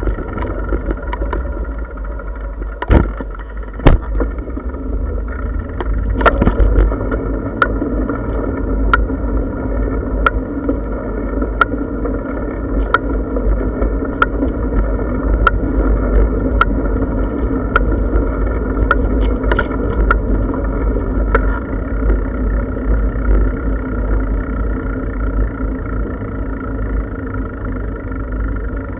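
Bicycle ride heard from a camera on the bike: a steady low rumble of tyres rolling on the path and wind on the microphone. There are two sharp knocks a few seconds in as the bike jolts over bumps, and a light tick repeats about every second and a half through the middle.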